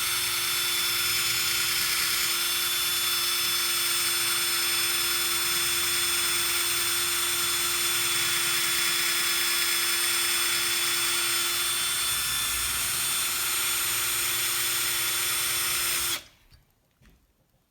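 Power drill running steadily as a 3/32-inch cobalt drill bit bores into metal: a constant whine that stops suddenly about sixteen seconds in. The bit is cutting slowly, doing worse than a standard steel bit.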